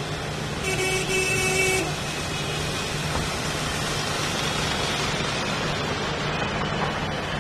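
Cars driving slowly through a flooded road, their tyres pushing through standing water with a steady rushing wash of traffic noise. About a second in, a car horn honks once for about a second.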